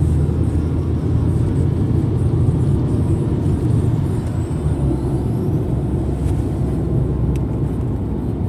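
Steady low rumble of a car driving along an open road at speed, heard from inside the cabin.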